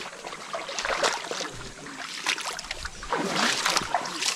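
Water splashing and sloshing in irregular bursts as people wade and work by hand in a shallow river.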